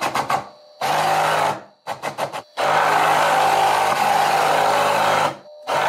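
Homemade CNC router axis driven along its ball screw and linear rails by its motor at full speed, a loud steady mechanical hum with a whine. It comes in several runs: short moves near the start, about a second in and around two seconds, then a longer run of about three seconds that stops near the end.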